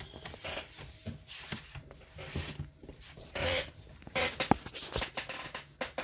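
Plastic laptop parts being handled and pressed together while the bottom cover of an Acer Nitro 5 is refitted: plastic rubbing and scraping, with a couple of sharp clicks in the second half.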